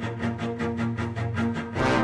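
Background music: the instrumental intro of a song, with a fast, steady beat over held low notes.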